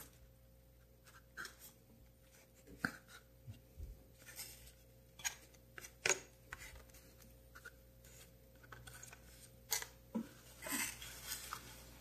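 Small metal parts of a Ronson gas lighter being picked up and set down on a cardboard tray: faint, irregular clicks and taps.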